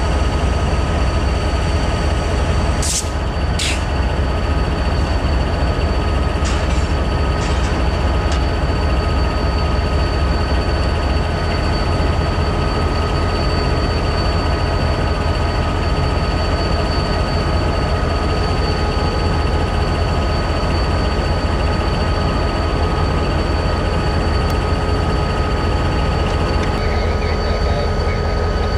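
Reading & Northern diesel locomotive No. 2531 idling: a steady low rumble with a steady whine over it. About three seconds in come two short, sharp hisses of air.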